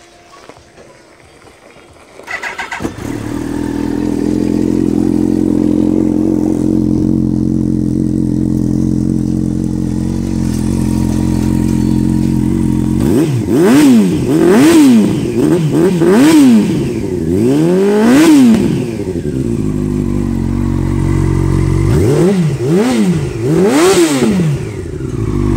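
2002 Yamaha R1's 998 cc inline-four motorcycle engine cranks on the starter and catches about two seconds in, then idles steadily through its aftermarket carbon-fibre silencer. It takes a burst of about five quick throttle blips midway, settles back to idle, and gets three more blips near the end.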